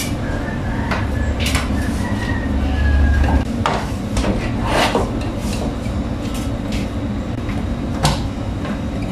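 A blind's headrail being handled and fitted against a window frame: scattered knocks, clicks and scrapes, the sharpest about eight seconds in, over a steady low rumble.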